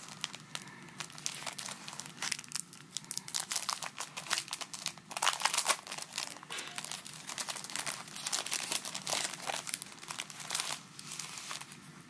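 Clear plastic retail bag crinkling and rustling as hands open it and handle the packaged Cusco door handle protectors, in irregular bursts that are loudest around the middle.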